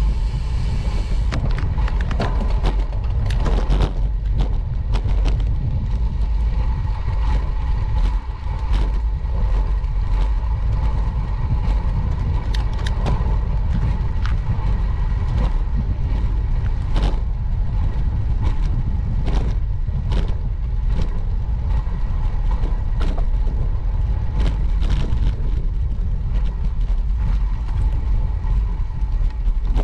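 Ride noise from a bicycle on city streets: a steady low rumble of wind and road noise with car traffic, broken by frequent sharp clicks and rattles.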